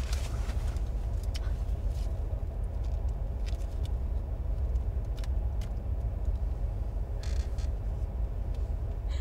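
Car engine running, heard from inside the cabin as a steady low rumble, with a few light clicks and a short rustle about seven seconds in.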